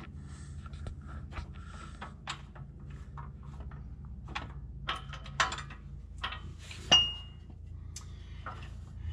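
Metal hand tools clicking and clinking against the steel fittings of a transmission jack's head, with one loud metal clank about seven seconds in that rings briefly. A steady low hum runs underneath.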